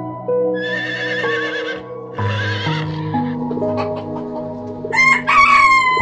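Two horse whinnies in the first half, then a rooster crowing about five seconds in, the loudest sound, over steady background music.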